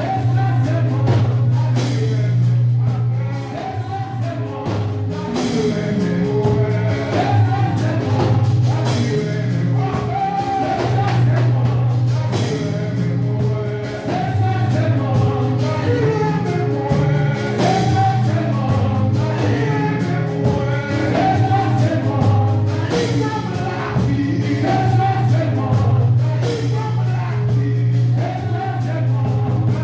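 A man singing a gospel song into a handheld microphone, accompanied by a band with a steady bass line and drums.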